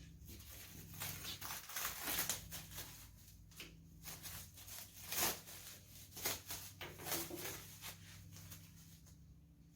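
Masking tape being peeled off freshly painted parts in a series of short, uneven ripping pulls, the loudest about five seconds in, over a faint steady low hum.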